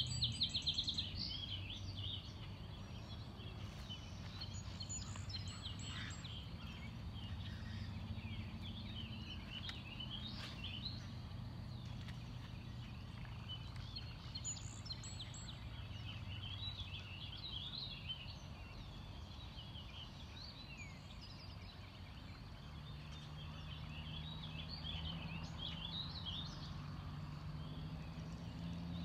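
Many small birds chirping and singing in quick, varied phrases throughout, over a steady low hum.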